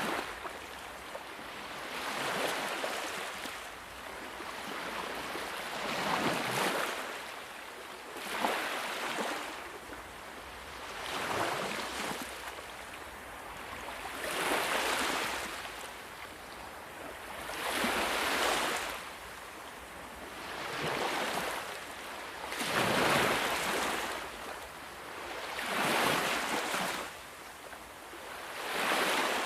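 Sea waves breaking and washing up on a shore, each surge of surf swelling and falling away, about every two to three seconds.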